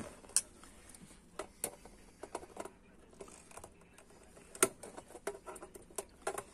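Irregular small clicks and scrapes of fingers working at a jack socket's threaded nut, which is stuck fast on the metal rear panel of a Kenwood TS-530S transceiver. The two sharpest clicks come about half a second in and again near four and a half seconds.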